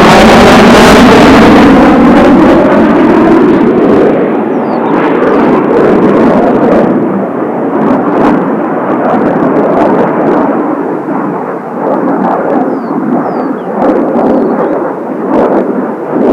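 Kawasaki T-4 jet trainers passing close overhead: loud jet noise whose high hiss and falling pitch sweep fade about four seconds in, leaving a lower rumbling, crackling drone as the formation moves away.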